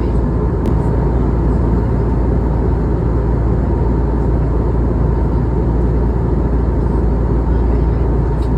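Steady in-flight cabin noise of an Airbus A320neo: an even rumble of engine and airflow noise, strongest at the low end, with a faint steady hum running through it.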